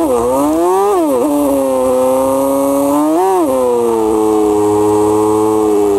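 Motorcycle engine under way. It revs up over about a second and drops off sharply, revs briefly once more a little past the middle, then holds a steady cruising note.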